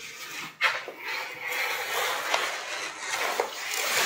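Wallpaper being peeled off a wall: a continuous rasping tear that swells near the end, with a sharp click about half a second in.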